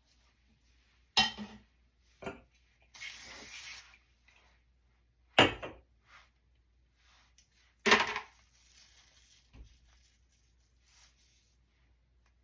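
Velcro hair rollers being taken out of the hair and set down on a hard surface: four sharp clacks with faint rustling of hair between, and a short steady hiss about three seconds in.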